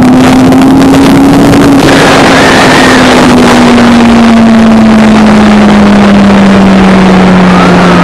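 Sport motorcycle engine running steadily under way, its pitch rising slightly in the first two seconds and then slowly easing down, under heavy wind rush on the microphone.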